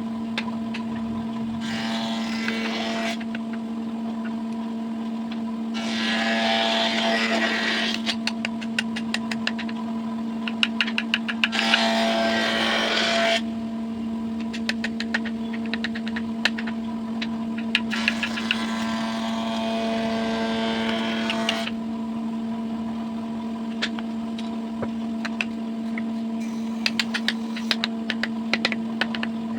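An electric woodworking power tool's motor runs with a steady hum; four times it gets louder and noisier for a few seconds, as when the tool is cutting into wood. Scattered sharp ticks, rapid at times, run alongside.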